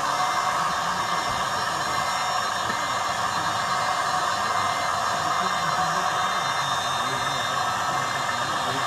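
Steady whirring of a small electric pump motor in an RC model tipping trailer, running without change while the hydraulic tipper bed lowers.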